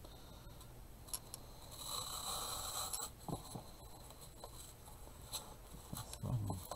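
Handling noise from artificial flowers being worked by hand: soft rustling with a few small ticks, and low soft knocks near the end.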